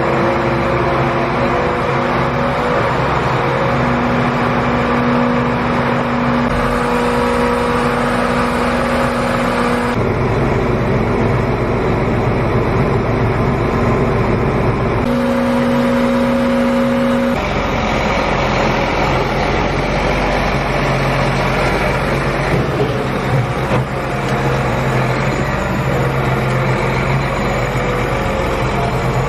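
Large John Deere row-crop tractor's diesel engine running steadily while it backs up to, hitches and pulls a tillage implement. The engine sound changes abruptly several times.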